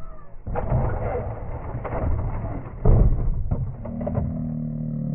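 Knocks and clatter from a radio-controlled scale crawler working over rocks, the loudest knock about three seconds in. From about four seconds in, a steady hum, as of its electric motor running at an even speed.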